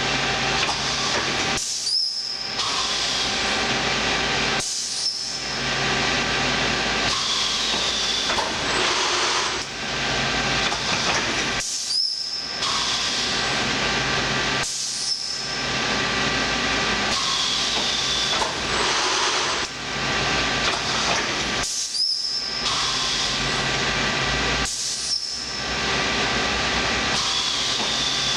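Rebuilt Sencorp 2500 roll-fed thermoformer running through its cycle: a steady hiss broken by brief dips every two to three seconds, each with a short high squeak, the sequence repeating about every ten seconds.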